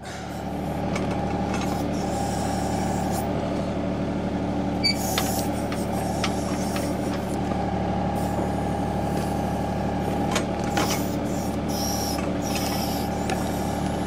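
A compact tractor's diesel engine running steadily under load as it drives the hydraulics of a John Deere 270B backhoe, with the bucket digging out a tree stump. A few sharp knocks stand out from the steady running about five and ten seconds in.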